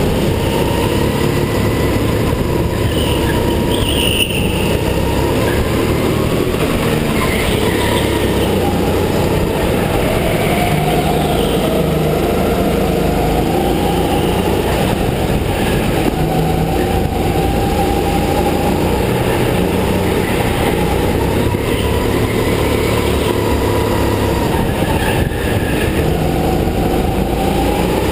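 Go-kart motor running through a lap, heard from the driver's seat. Its pitch rises and falls as the kart slows for corners and speeds up again, over a steady rumble.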